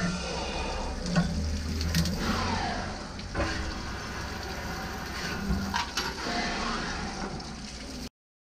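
Automatic valve-lifter drilling and chamfering machine at work: a steady machine hum and coolant spray noise with several sharp metallic knocks from the clamping and tool slides, and a short falling whine about two seconds in. The sound cuts off abruptly near the end.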